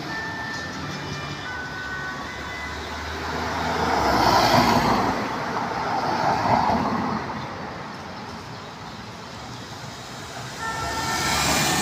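Street traffic: a steady city hum with vehicles passing close by, two loud passes about four to seven seconds in and another building near the end.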